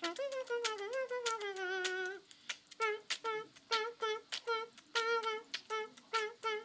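High-pitched melody: one long wavering, gliding note over a few sharp clicks, then a run of short repeated notes at about four a second.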